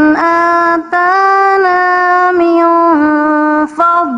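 A woman's solo melodic Quran recitation (tilawah), chanted in long held notes with ornamented pitch turns between them and two brief pauses for breath, about a second in and near the end.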